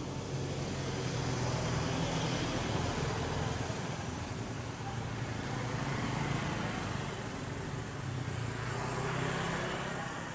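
A motor engine running steadily with a low hum, swelling and easing a few times.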